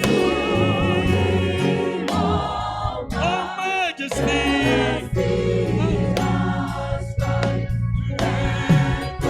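A choir singing a gospel hymn with instrumental accompaniment and a sustained bass line.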